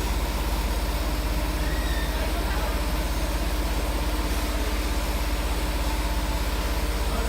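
Multi-needle quilting machine running steadily at speed, about 1500 RPM, with a rapid, even mechanical beat over a low hum.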